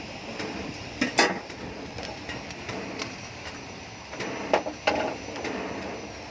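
A few sharp metal knocks and clanks from workshop tools and metal being struck or handled: two about a second in, the second the loudest, and two more near the five-second mark, over a faint steady high whine.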